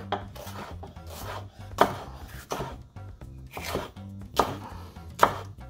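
Chef's knife slicing a red bell pepper into strips on a wooden cutting board: separate cuts roughly a second apart, each ending in a knock of the blade on the board. Soft background music runs underneath.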